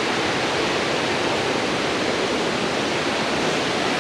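Steady rush of fast-flowing water over rocks, a gorge creek running high after rain.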